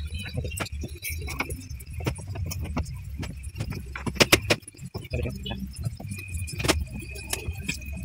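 Plastic clicks, knocks and rattles of a washing machine's plastic top panel being handled and pressed back into place, with a screwdriver. The loudest cluster of sharp clicks comes about four seconds in, over a low handling rumble.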